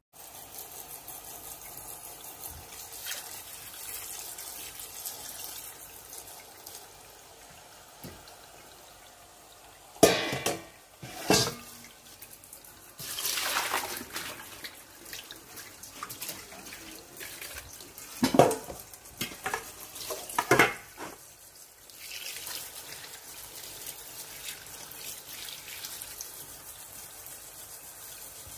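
Tap water running onto shredded young papaya in a stainless steel bowl. Partway through, a few sharp clanks of stainless steel and a splash as the papaya is tipped into a stainless steel colander, then the tap runs steadily over it again.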